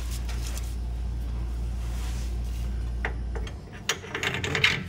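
A steady low hum that cuts off about three and a half seconds in, then several metal clinks and knocks as parts of the drill's disc opener are handled.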